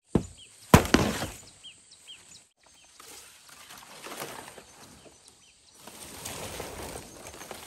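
Two sharp cracks within the first second, the second the loudest, then bursts of rustling and crackling. Small birds chirp and insects drone steadily behind.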